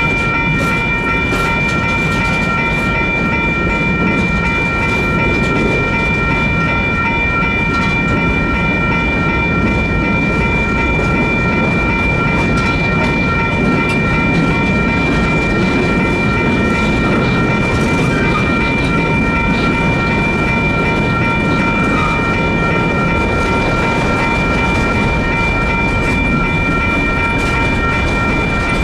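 Union Pacific freight train rolling past over the crossing with a steady rumble and clacking wheels. The crossing's electronic bells ring continuously over it, heard as steady high tones.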